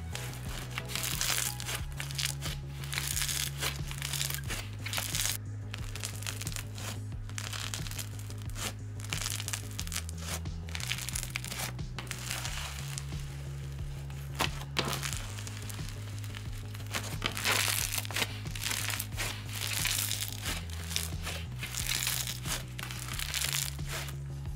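Snow Fizz slime being squeezed and stretched, giving crunchy, crinkly crackling in waves. Background music with a repeating bass line plays underneath.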